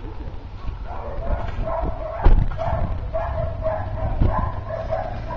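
Short, repeated high-pitched animal calls, about two a second, over a steady low rumble, with one loud bump a little over two seconds in.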